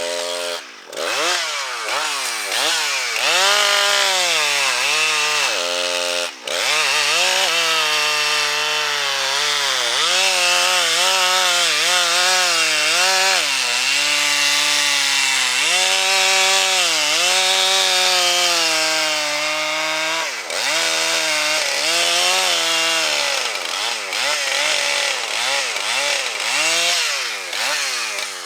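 Gas chainsaw running under load cutting wood, its engine pitch rising and falling again and again as the throttle is worked through the cut, winding down at the end.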